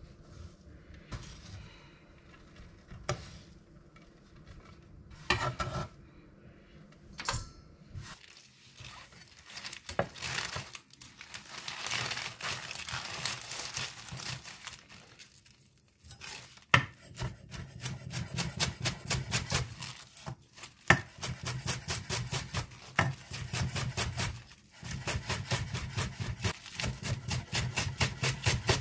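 Fresh greens being handled with a rustle, then chopped on a cutting board with a Zwilling chef's knife in quick, even strokes, several a second, through the second half.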